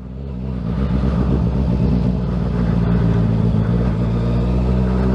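Motorcycle engine running steadily while riding, rising in level over the first second and then holding even.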